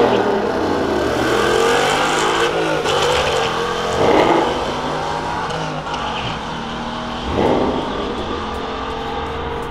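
Drag cars running at full throttle down the strip, among them a Whipple-supercharged Ford Mustang GT's V8. The engine sound slowly fades as they pull away, with two brief louder surges about four and seven and a half seconds in.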